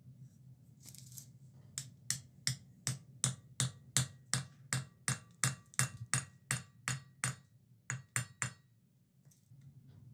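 A run of about twenty light metallic taps, roughly three a second, each with a short ringing note, pausing briefly near the end before a last few taps.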